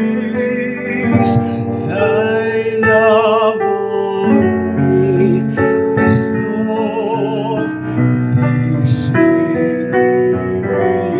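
A solo voice singing a song with vibrato on held notes, over a piano accompaniment.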